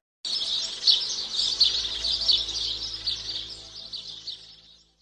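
A dense chorus of small birds chirping, many overlapping chirps that start abruptly and fade out near the end, with faint steady held tones underneath.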